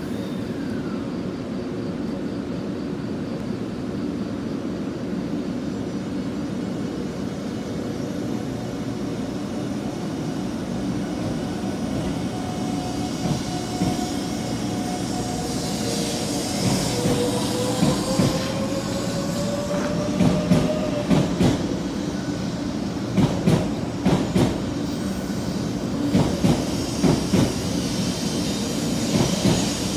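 JR West 500 series Shinkansen pulling out of the station. A steady hum while it stands, then from about halfway a whine that rises slightly in pitch as it starts moving. Short wheel knocks follow in quick groups, coming more often as the train gathers speed.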